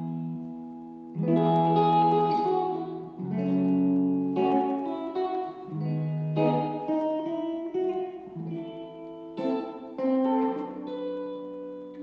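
Guitar playing the introduction to a song: chords struck every second or two and left to ring.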